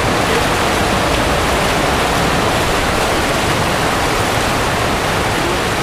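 Continuous splashing and churning of pool water as water polo players swim hard, a steady rushing noise.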